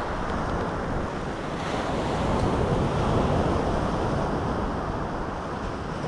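Choppy sea surf washing onto the beach, with a stiff wind blowing across the microphone. It is a steady rush that swells a little and then eases.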